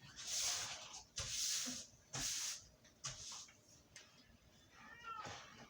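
Domestic cat hissing three times in quick succession, then a brief high cry near the end.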